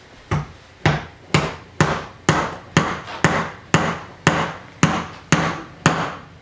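Small hammer striking the wooden parts of a children's pull-back airplane kit as they are assembled: a steady run of about a dozen sharp taps, about two a second.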